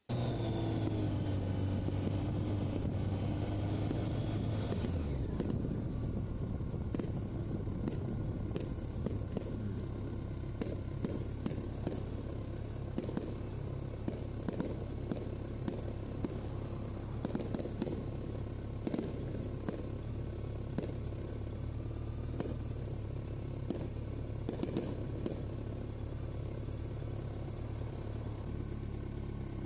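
Motorcycle engine coming down in pitch over the first few seconds, then idling steadily, with short sharp pops of distant fireworks scattered over it.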